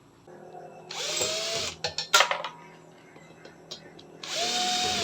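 Power drill/driver running in two short bursts about three seconds apart, its motor whine rising and then holding steady each time, with a few sharp clicks between, as screws are driven while assembling a ceiling fan.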